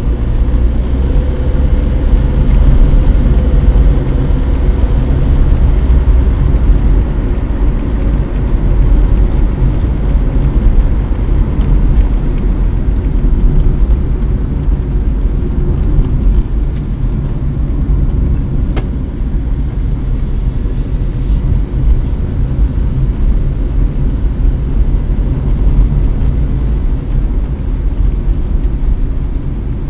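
Car cabin noise while driving: a steady, loud low rumble of engine and tyres on the road, with a faint hum during the first ten seconds or so.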